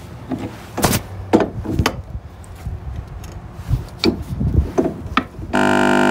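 A pipe wrench working the steering cable nut on an outboard motor's tilt tube: a handful of separate metal clicks and clanks as the wrench grips and turns. Near the end a loud, steady hum with several fixed pitches starts suddenly.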